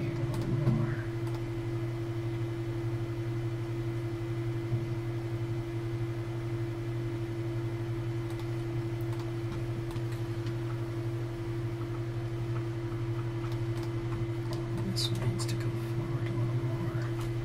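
Steady low electrical hum in the recording, with a few faint clicks about a second in and near the end, typical of computer keyboard and mouse use.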